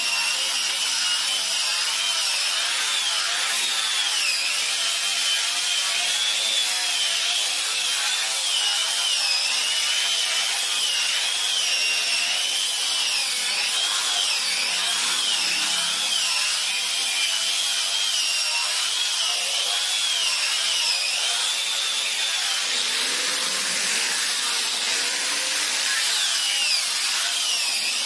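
Angle grinder fitted with a sanding disc, running and sanding a wooden board: a steady high motor whine that wavers up and down in pitch as the disc is pressed and swept over the wood, over the hiss of the abrasive on the surface.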